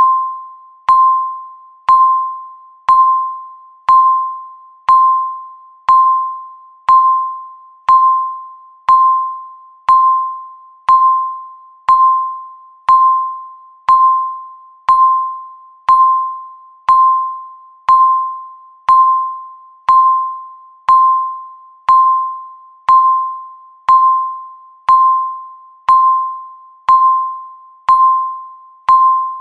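Countdown-timer beep repeating once a second: a short, bell-like electronic tone near 1 kHz that starts with a click and fades away before the next one.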